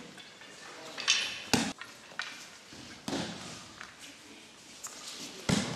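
Aikido practitioners being thrown down onto tatami mats during kneeling techniques: two heavy thuds of bodies and hands hitting the mat, about a second and a half in and near the end, with softer rustling and brushing between them.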